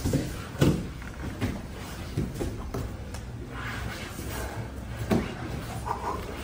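Jiu-jitsu grappling on padded mats: bodies and gi fabric shifting and scuffing, with dull thumps about half a second in and again about five seconds in.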